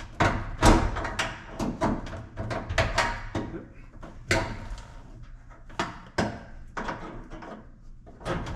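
Irregular knocks, clunks and scrapes of sheet metal as parts at the front of a GE Spacemaker dryer are worked into place by hand and with a screwdriver.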